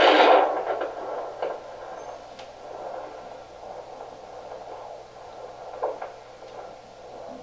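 Handheld fetal Doppler monitor's speaker giving a steady, throbbing whoosh of static as the probe is moved over the belly, searching for the fetal heartbeat. A loud swish opens, and there is a brief scrape of the probe about six seconds in.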